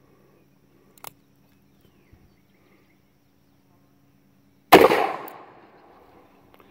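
A single loud shot from a Taurus 415 revolver in .41 Magnum with a 2-inch Magnaported barrel, after about four and a half seconds of waiting. The crack rings out and dies away over about a second.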